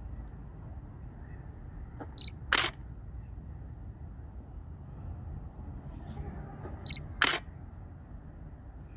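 Canon DSLR focusing with a Canon EF 70-200mm f/4L USM lens, twice: each time a short high focus-confirmation beep, then the sharp click of the shutter firing. The two beep-and-click pairs come about four and a half seconds apart. The lens's ultrasonic focus motor is silent, so only the beeps and shutter clicks are heard.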